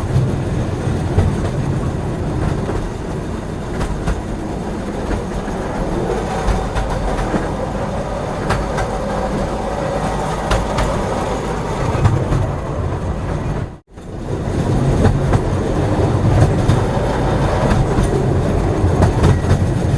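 Moving passenger train heard from inside the carriage: a steady low rumble with scattered clicks of the wheels over the rails. The sound drops out for a moment about fourteen seconds in, then picks up again.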